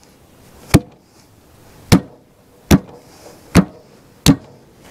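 Five sharp knocks, irregularly spaced about a second apart, from hand work on a tractor's unseated front tyre and rim.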